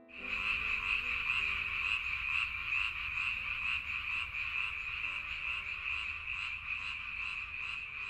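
Frogs croaking in a steady chorus, a high pulsing call that repeats about three times a second.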